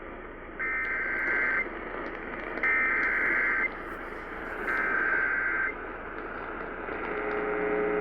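Emergency Alert System digital header heard over AM radio: three one-second bursts of harsh data screech about a second apart, over steady radio hiss. About seven seconds in a lower buzzing tone starts, the beginning of the alert tone that opens a flash flood warning.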